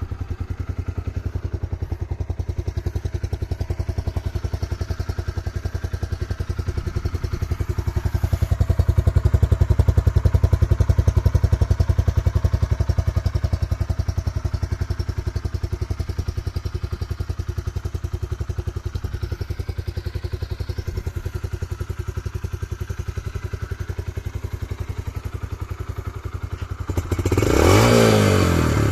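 Yamaha YBR 125G's air-cooled 125 cc single-cylinder four-stroke engine idling steadily, then revved up and back down near the end.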